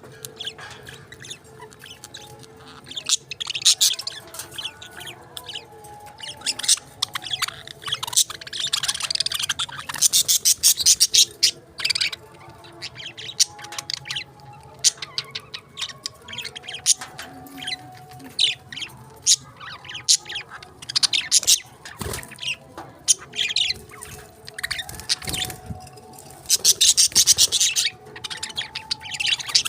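Budgies chirping and chattering, a quick run of high chirps and warbles that comes in bursts, loudest about a third of the way in and again near the end.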